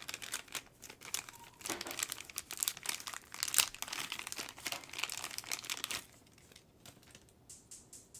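Packaging crinkling and rustling as a hot air station nozzle is unwrapped and handled, stopping about six seconds in, followed by a few faint clicks.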